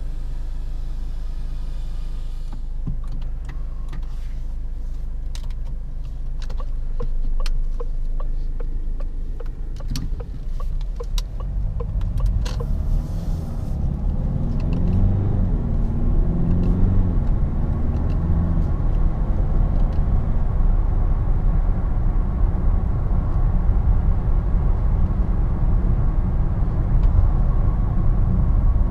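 Inside the cabin of a DS7 Crossback with its 2.0 BlueHDi four-cylinder diesel: a steady low hum with scattered clicks for about the first twelve seconds. Then the engine pulls away and accelerates, its pitch climbing and dropping back as it shifts up. It settles into a louder steady drone of engine and road noise at speed.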